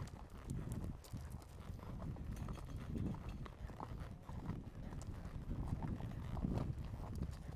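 Hooves of a ridden horse clip-clopping as it walks along a trail, a continuous run of uneven steps.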